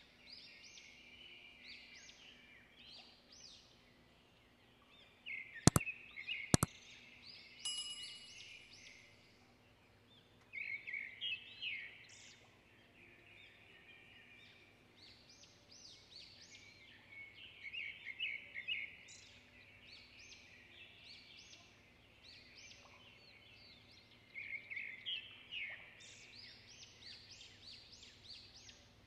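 Small birds chirping and twittering in repeated bursts of short high chirps. About six seconds in, two sharp clicks come less than a second apart and are the loudest sounds.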